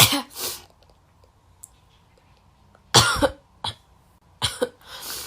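A girl sneezing and coughing, set off by a nasal swab: two quick bursts right at the start, a loud one about three seconds in, then several smaller ones near the end.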